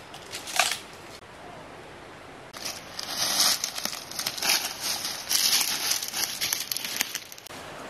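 Dry leaf litter and brush crackling and rustling: one short rustle about half a second in, then a dense run of crackles for about five seconds that stops shortly before the end.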